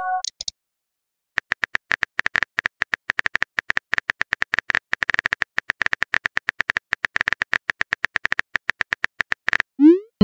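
Phone keyboard key-tap clicks from a texting-app animation, coming fast and unevenly as a message is typed out. Near the end a short rising swoosh plays as the message is sent.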